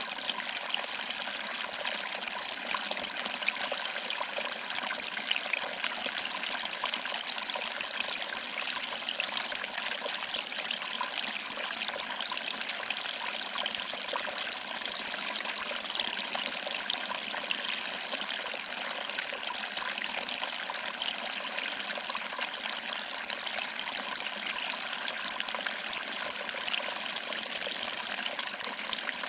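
Small waterfall: water trickling and splashing over rocks into a pool, a steady hiss with faint scattered splashes.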